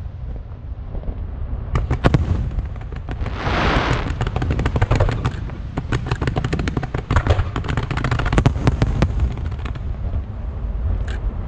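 Fireworks display: many sharp bangs in irregular succession over a continuous low rumble, with a dense burst of crackling hiss about three to four seconds in.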